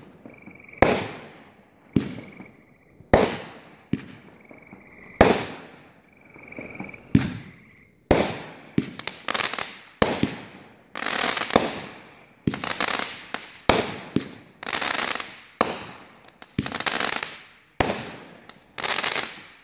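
Rapacious, a Cutting Edge 500-gram consumer firework cake, firing its shots: sharp reports about once a second at first, then coming faster from about eight seconds in. In the later shots each break is followed by up to a second of crackling.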